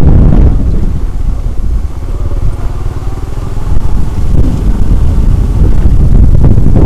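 An engine running steadily under wind buffeting the microphone. The wind eases between about two and four seconds in, letting the engine's hum come through, then builds again.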